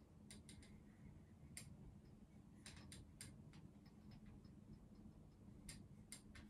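Near silence: faint, irregular light clicks and taps of a pen writing, over a faint steady low hum.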